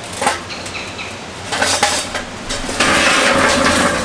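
Hot charcoal tipped from a metal chimney starter into a metal charcoal basket inside a steel-drum smoker, clinking and clattering. A few separate knocks come first, then a dense rattling pour from about three seconds in.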